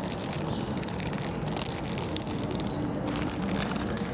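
Plastic packaging crinkling as a plastic-wrapped multi-pack of instant coffee sachets is grabbed and handled. It is a dense run of crackles that thins out about three seconds in, over a steady low background.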